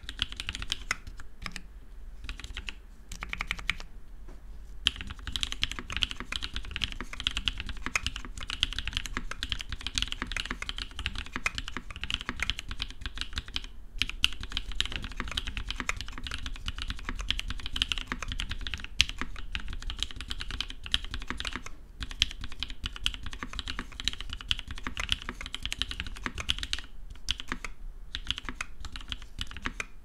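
Continuous fast typing on a Duck Viper V2 mechanical keyboard fitted with Kailh Cream linear switches on Gon 55 g springs, a polycarbonate plate and GMK Carbon keycaps: a dense run of keystroke clacks, broken by a few brief pauses.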